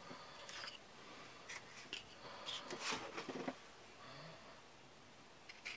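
Faint handling noise of a kydex sheath and its belt loop: light rubbing and a few soft plastic clicks as the pieces are turned over in the hands, fading out after about three and a half seconds.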